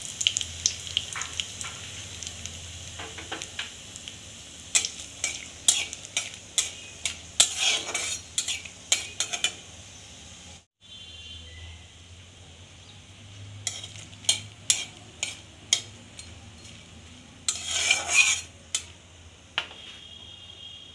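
Dried red chillies and nigella seeds frying in hot mustard oil in a wok, with a steady sizzle. A metal spatula stirs and clicks against the pan in short clusters of sharp taps, three times. The sound cuts out for an instant near the middle.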